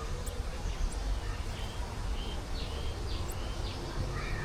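Birds chirping and calling: many short high notes and quick upward-sweeping whistles, over a steady low rumble.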